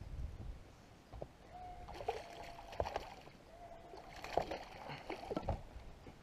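A hooked largemouth bass thrashing and splashing at the water's surface beside a fishing boat, with several sharp knocks spread through the fight.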